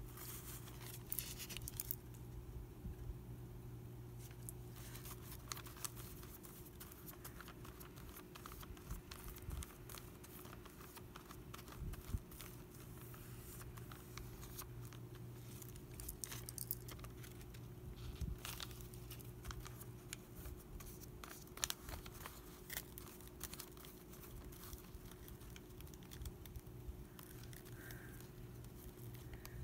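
Faint paper handling: cut-out paper pieces rustling and being pressed onto a journal page, and a brush working Mod Podge glue medium over paper, with scattered soft ticks. A steady low hum runs underneath.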